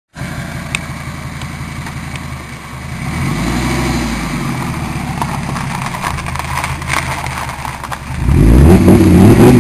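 Fiat Marea 20V's straight-five engine and exhaust running, with a brief rise in revs about three seconds in. Near the end it is revved up hard and gets much louder.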